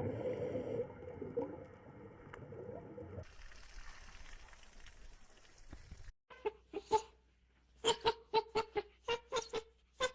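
Chickens clucking: a run of short, sharp clucks in quick clusters in the second half, after a stretch of farmyard background noise.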